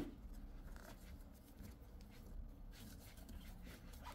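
Faint rustle and rubbing of flat polyester cord and a metal crochet hook as stitches are worked, over a low steady room hum.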